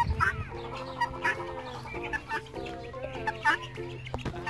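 White helmeted guineafowl calling in short, repeated calls, about one or two a second, over background music with steady held notes.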